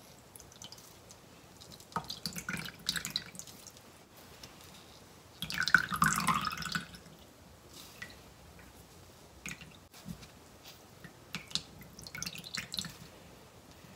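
Water squeezed from a cloth bag of strained azuki bean paste, dripping and trickling into a bowl of water. It comes in three bursts as the bag is wrung, the loudest about six seconds in, with scattered drips between.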